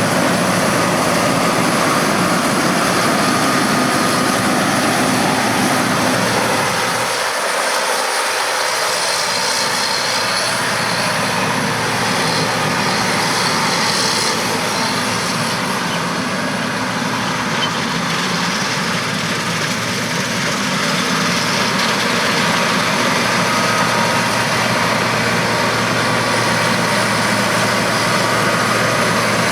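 John Deere 9650 STS combine running steadily as it harvests wheat: a continuous engine and machinery hum. The low rumble briefly drops away about seven seconds in.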